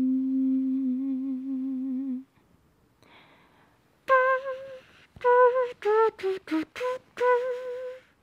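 A woman humming: one long low note held with a slight waver for about two seconds, then, after a short pause, a run of short higher notes as she tries out a tune.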